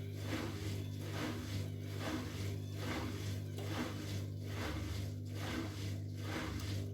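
Bosch Maxx WFL 248Y washing machine running with an unbalanced load in the drum. A steady motor hum sits under a rushing sound that swells and fades about once a second as the drum turns.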